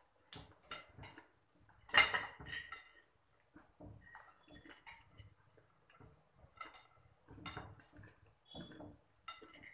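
Light clinks and scrapes of fingers and food against ceramic plates as snacks are picked up by hand, in short scattered sounds, the loudest about two seconds in.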